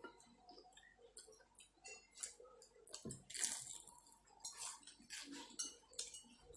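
Faint eating sounds: forks clicking and scraping against plates, with chewing, in scattered short clicks and brief bursts.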